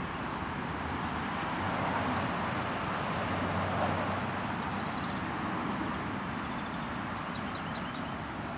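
Steady outdoor background noise, an even hiss and rumble with no distinct events.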